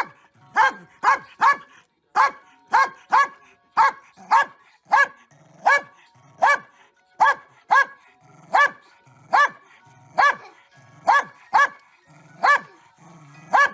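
A corgi barking sharply and over and over, about two barks a second, at a jack-in-the-box as its crank is turned.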